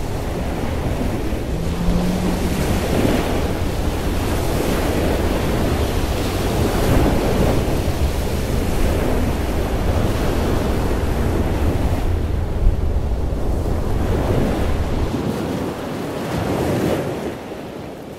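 Breaking ocean waves and rushing surf in the shallows, with wind buffeting the microphone as a low rumble. One short thump about two-thirds of the way through.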